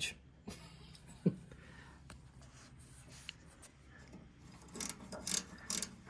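Faint scattered clicks and rubbing, with a single sharper knock about a second in and a quick run of clicks near the end.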